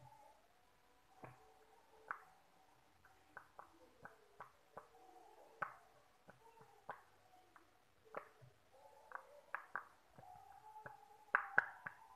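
Bubbles of a silicone pop-it fidget toy being pressed in and popping: soft, irregular pops about one or two a second, with a louder quick run of pops near the end.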